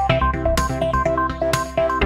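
Upbeat electronic children's-song instrumental: a synthesizer melody of short repeated notes over a steady beat and bass.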